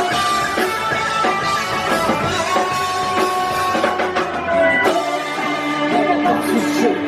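Live rock band playing: electric guitars and drum kit.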